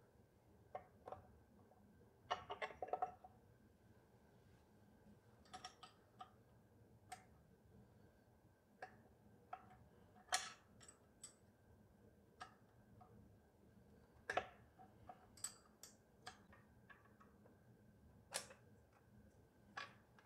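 Sparse light clicks and taps of metal engine parts being handled during teardown of a Honda GX160 engine, with a quick cluster of clicks about two and a half seconds in.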